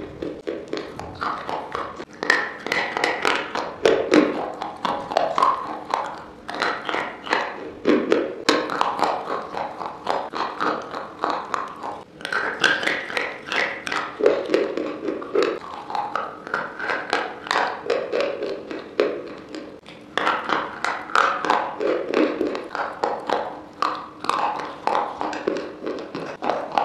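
Close-miked crunching and chewing of hard, brittle white sticks: a continuous run of sharp cracks and snaps mixed with mouth sounds, going on without a break.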